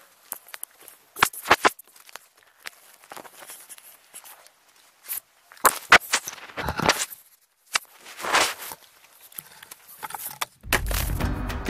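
Vervet monkeys handling the camera up close: their hands and fur rubbing, tapping and scraping on the microphone in an irregular run of knocks and rustles. Music begins near the end.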